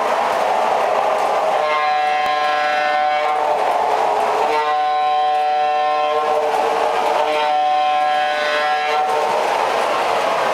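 The electronic sound system of an MTH O-gauge GG1 model locomotive sounds its horn in three separate blasts, the second the longest, over a steady rushing background.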